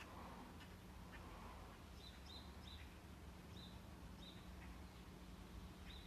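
Near silence: a steady low hum, with a string of faint, short, high chirps from about two seconds in.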